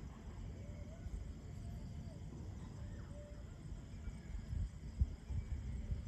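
Low, gusty rumble of storm wind buffeting the microphone, with stronger gusts in the last couple of seconds. A few faint, short distant calls can be heard in the first half.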